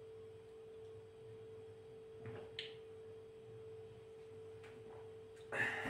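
A faint steady tone at one pitch with a low hum beneath it, holding level throughout; a brief soft noise comes near the end.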